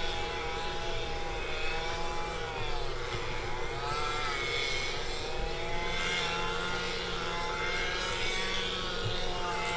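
Steady engine drone, its pitch slowly sinking and rising.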